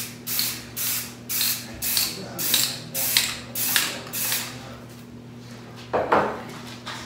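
Aerosol can of frosted-glass spray paint sprayed onto a door's glass pane in short hissing bursts, about eight of them at roughly two a second, stopping about four seconds in. A single knock follows near the end.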